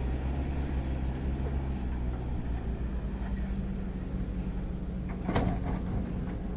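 Heavy diesel engine running steadily, with one sharp knock about five seconds in.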